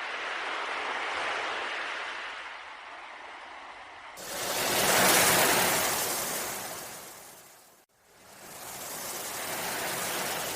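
Ocean waves washing in swells, with a louder wave surging in about four seconds in and cutting off suddenly near eight seconds, before another wave builds.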